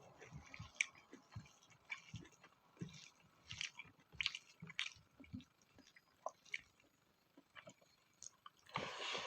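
Close chewing of spicy pork fat: irregular wet smacks and clicks of the mouth, with a louder bite near the end.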